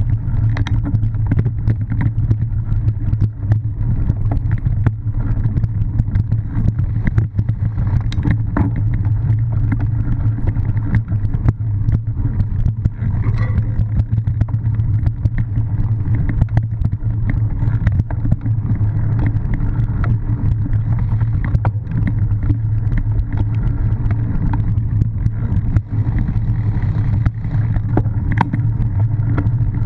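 Wind and ride rumble on a bike-mounted action camera racing cyclocross over rough grass and dirt: a steady low roar with frequent clicks and knocks as the bike bounces over the ground.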